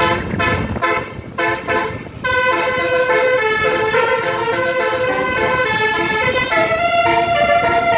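Tour bus telolet horn, a multi-tone musical air horn, sounding a series of short toots, then from about two seconds in playing a melody of held notes that change pitch.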